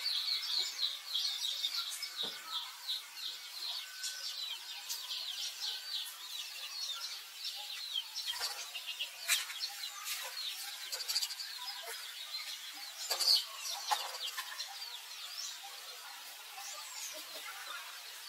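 Birds chirping. A fast trill opens it, then come scattered high chirps and a few short whistles that rise and fall.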